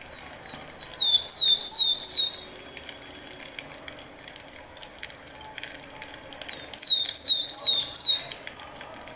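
A bird singing a short run of four or five quick, high, descending whistled notes, repeated about a second in and again near the end.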